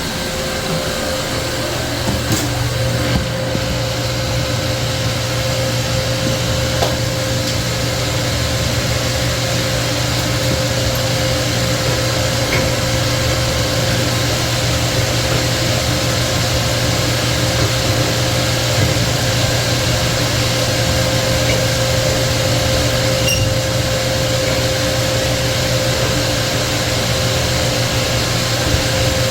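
Refrigerant recovery machine running steadily as it pulls refrigerant out of the walk-in freezer system. It makes a constant mechanical hum with a steady tone, broken by a few faint knocks.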